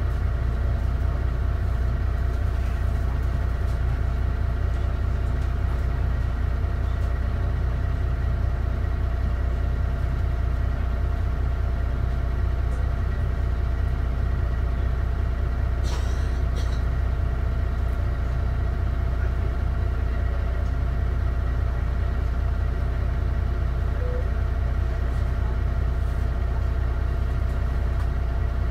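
DAF DB250 double-decker bus's diesel engine idling steadily, with a brief pair of light clicks about halfway through.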